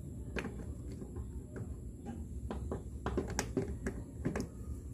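Light clicks and taps of metal parts as a round steel drum is fitted by hand onto the motorcycle engine's crankshaft, scattered with a cluster in the second half.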